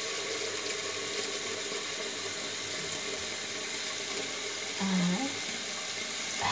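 Kitchen tap running steadily, filling a cooking pot with water.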